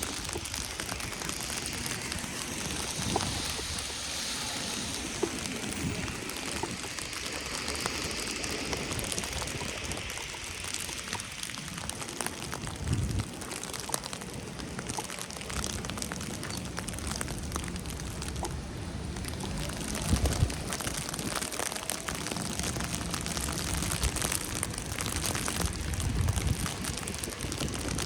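Steady patter of falling precipitation on the ground and surrounding surfaces on a snowy day, made up of many fine ticks, with a few soft low thumps.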